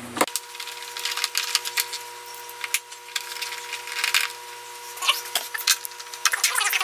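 Screwdriver working Torx screws out of a Ryobi BP42 backpack leaf blower's plastic engine shroud: irregular clicks and scrapes of the tool on the screw heads and plastic, over a faint steady hum.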